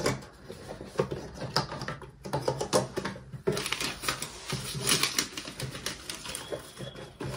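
Irregular clicks, taps and rustles of a smartphone's cardboard box and the paper and plastic items inside it being handled.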